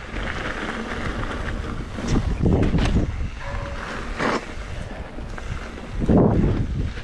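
Wind rushing over the microphone of a mountain bike rider's camera while riding, with the tyres rolling over a sandy dirt trail. The rumble surges louder about two and a half seconds in and again about six seconds in.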